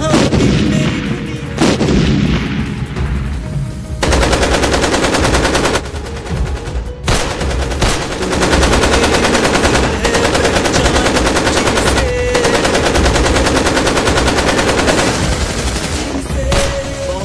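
Automatic gunfire in long rapid bursts with a few short breaks, over background music, after two sharp blasts in the first two seconds.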